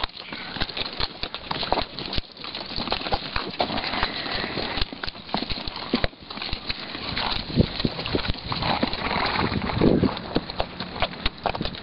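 Hooves of a walking horse on sandy, stony desert ground, heard from the saddle: an uneven clip-clop of footfalls, with a louder low burst about ten seconds in.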